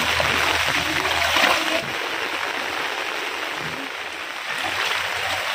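Heavy rain with running, splashing water, heard as a steady hiss that eases a little about two seconds in.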